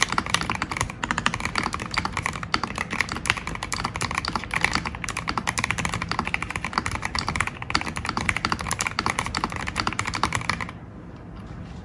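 Fast continuous typing on a Keychron V5 Max mechanical keyboard with Gateron Jupiter Red linear switches, lubed with Krytox 205g0 and modded: a dense run of keystroke clacks that stops abruptly about a second before the end.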